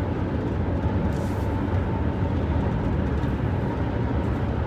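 Steady road and engine noise inside a moving car's cabin, a low rumble at highway speed.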